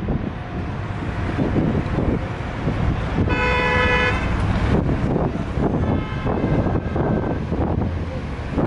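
Wind buffeting the microphone on the open top deck of a moving bus, over road and engine rumble. About three seconds in, a vehicle horn toots for under a second, and a fainter toot follows a couple of seconds later.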